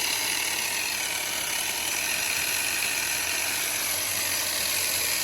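Electric grinder running steadily, with a loud, even whine and hiss.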